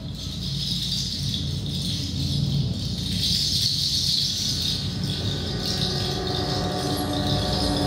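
A rattle or shaker shaken steadily in swelling waves as part of the live dance accompaniment, over a low rumble. Near the end a held pitched instrumental tone comes back in.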